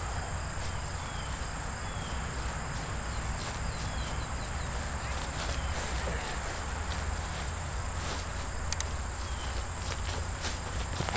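Insects droning steadily at a high pitch, with a low rumble underneath and a few faint, short chirps.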